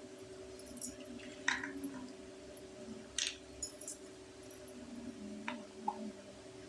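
Small plastic toy kitchen pieces clicking and clinking as they are handled and set out, in a few separate taps and rustles, over a steady faint hum.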